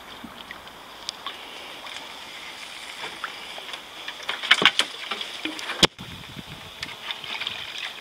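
Leaves and twigs of overhanging branches crackling and scraping against a kayak as it pushes into the bank, loudest about halfway through, over water lapping at the hull. A single sharp knock comes just before the sound cuts off abruptly.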